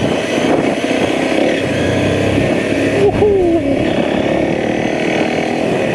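Enduro motorcycle engine running steadily as the bike rides along a dirt trail.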